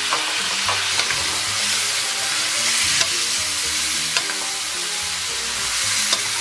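Pork ribs sizzling in a stainless steel wok in oil and soy-and-bean-paste sauce, with a spatula knocking and scraping against the pan every so often.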